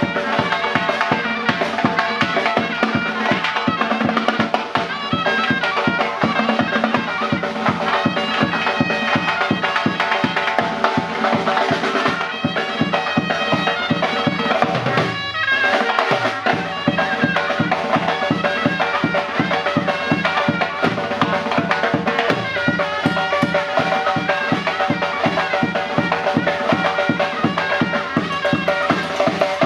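Uzbek surnay, a double-reed shawm, playing a loud, reedy melody over a fast, steady drum beat. About halfway through, the surnay's tone slides down and breaks off briefly, then the playing resumes.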